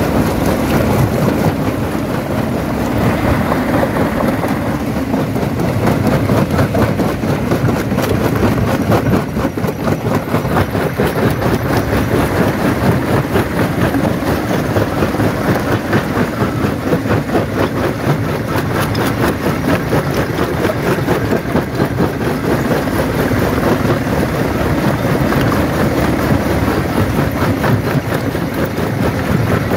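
Jaw crusher running and breaking stone: a steady, heavy mechanical rumble with a dense, irregular clatter of knocks as rock is cracked and crushed between the jaws.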